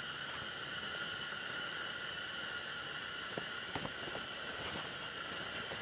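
Steady hiss with several faint, high, steady tones running through it, and a few soft clicks between three and four seconds in.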